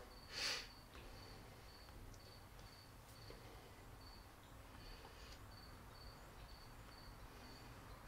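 Near silence: room tone with a faint, evenly repeating high chirp, about two or three a second, and a short soft hiss about half a second in.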